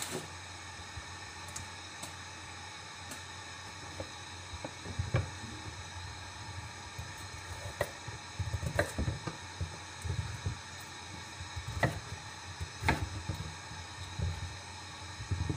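Kitchen knife chopping carrots on a wooden cutting board: irregular knocks of the blade against the board, a few louder than the rest, over a steady background hiss.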